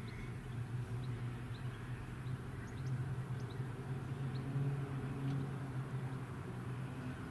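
Distant drone of a formation of three single-engine propeller aircraft flying overhead: a steady low hum that swells a little about halfway through.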